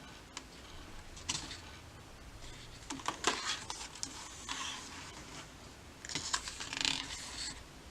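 Paper rustling as photobook pages are handled and turned, in three short bouts of crisp rustles.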